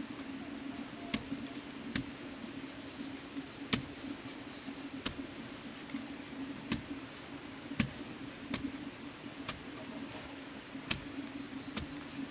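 Short sharp knocks at uneven spacing, roughly one a second, over a steady low hum.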